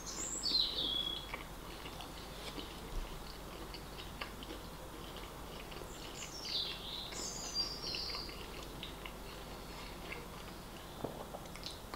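Early-morning birdsong: two quick phrases of falling high notes, one right at the start and another about six seconds in. Faint clicks of chewing and cutlery run underneath.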